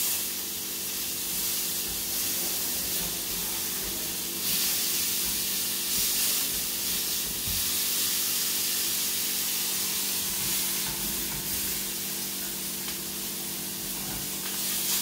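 Steak sizzling in a frying pan over a gas flame, a steady frying hiss, with a steady low hum underneath.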